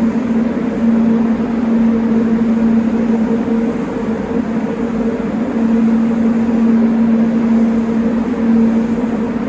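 Paint spray booth running: a steady motor hum under a constant rush of air.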